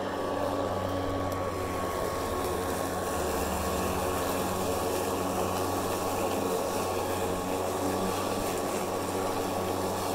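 Kobalt 80V battery-powered self-propelled lawn mower running while cutting grass: a steady motor hum with a constant thin high whine, handling the grass with ease.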